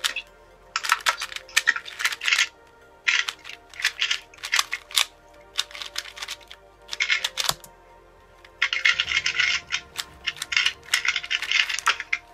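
Plastic 2x2 speedcube being turned fast in a timed solve: rapid clacking in several bursts, with single clicks between them.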